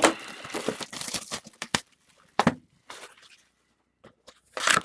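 Plastic shrink-wrap being torn and crinkled open on a sealed box of trading cards, in crackling spells with sharp clicks between them and a loud rip near the end.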